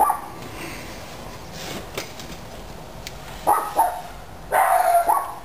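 A dog barking: a few short barks from about three and a half seconds in, then a longer one about a second later.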